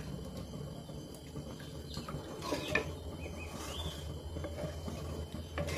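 Wooden spatula stirring thin masala gravy in a metal pan, with faint scraping and swishing a couple of seconds in, over a low steady hum.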